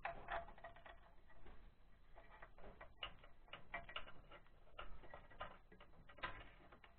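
Faint, irregular clicks and light metal taps of hand work at the mounting feet of a Lifan 168F engine, as bolts, nuts and the engine's base are fitted to the base plate by hand. The sharpest clicks come just after the start and again shortly before the end.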